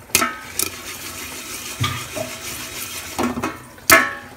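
Stainless steel pot and lid clanking: a few sharp metallic knocks that ring briefly, the loudest near the end, as the lid is handled with a cloth.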